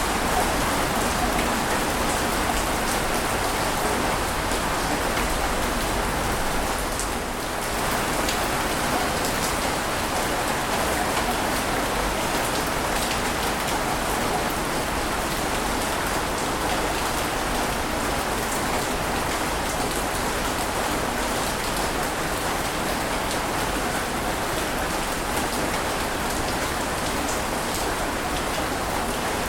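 Steady hiss of rushing water with no distinct swells, easing briefly about seven seconds in.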